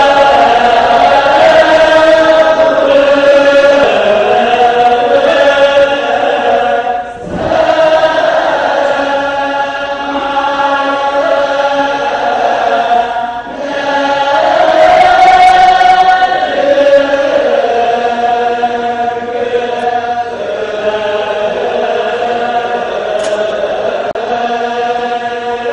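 Ethiopian Orthodox church chant sung by a men's choir in unison, with long held notes. The singing pauses briefly twice for breath, about 7 and 13 seconds in.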